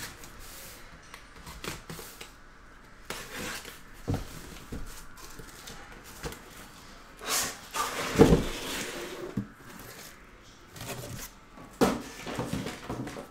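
Cardboard shipping case being opened and its sealed hobby boxes lifted out and set down: scattered rustles, scrapes and knocks of cardboard, busiest about seven to nine seconds in, with a sharp knock near the end.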